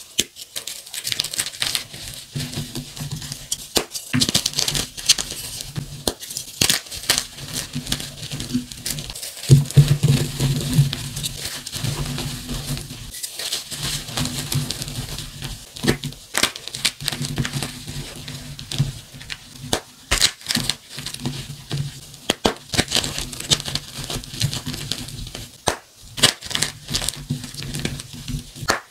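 Blocks of gym chalk, some dyed and some plain, crushed and crumbled in bare hands: dense crackling crunches of the blocks breaking, with the loudest crunches about ten seconds in.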